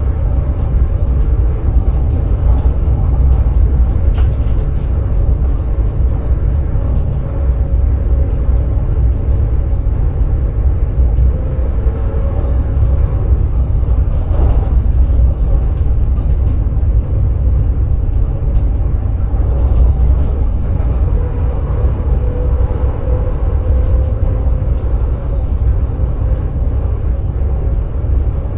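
Electric sprinter train running along the line, heard from the driver's cab: a steady low rumble from the wheels and running gear, with faint drifting hum of the traction equipment and a few light clicks.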